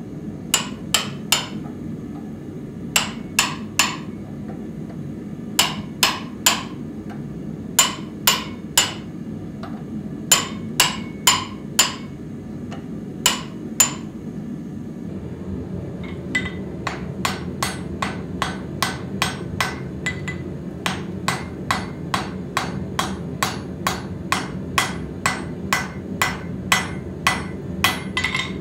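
Hand hammer striking red-hot steel. First come groups of three or four sharp, ringing blows driving an edge-steel insert into a slot cut in the axe blade, which is clamped in a vise. From about halfway there is a faster, lighter, even run of blows on the anvil, two to three a second, forge welding the edge steel into the blade, over a steady low rumble.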